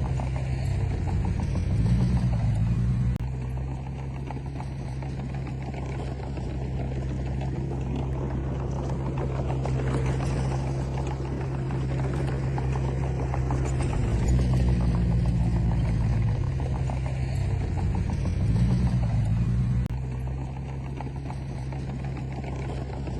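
Komatsu D20P bulldozer's diesel engine running steadily, rising in pitch and loudness about two seconds in and again from about fourteen to twenty seconds in as it works harder.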